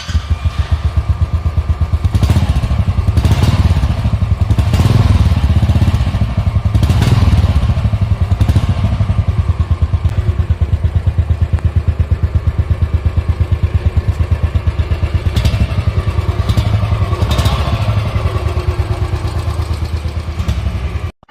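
Royal Enfield Classic 350 BS4's single-cylinder engine running through its stock silencer, with the steady, even thump of its exhaust pulses.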